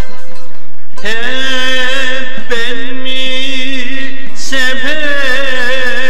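Music: a man singing a Turkish song in long, held, wavering notes over instrumental accompaniment. The voice comes in about a second in, after a short plucked-string passage.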